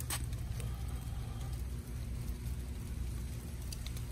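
Light rain: scattered raindrops landing as sharp ticks, the loudest just after the start and a few more near the end, over a steady low rumble.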